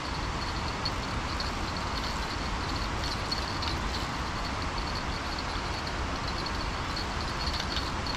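Steady rush of water spilling over a stepped concrete weir, with faint high chirps now and then.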